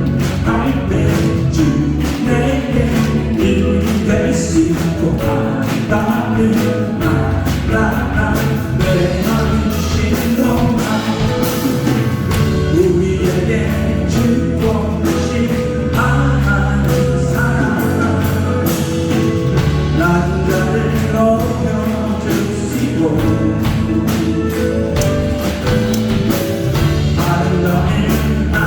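Church praise band playing a contemporary worship song with a steady beat, with voices singing along.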